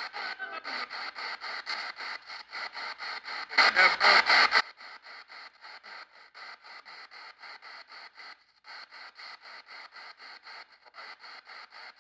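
Spirit box sweep radio played back through an audio processor: rapid choppy bursts of radio static and station fragments, about six a second, as the radio sweeps the band. A louder burst about four seconds in, after which the sweep goes on more quietly.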